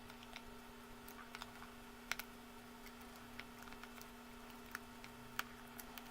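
Small, faint clicks and ticks of metal tweezers against a tablet's internals as a Wi-Fi antenna connector is eased off its socket. The clicks are irregular, the sharpest about two seconds in and again near the end, over a steady faint hum.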